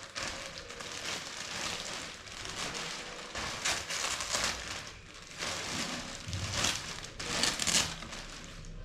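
Packaging being handled: plastic wrap and packing material rustling and crinkling in irregular bursts, stopping abruptly near the end.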